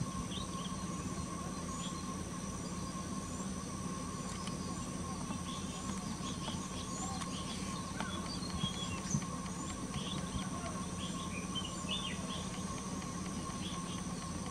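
Outdoor ambience of small birds: many short, faint chirps scattered through it, with a faint high chirp repeating about once a second, over a steady low hum.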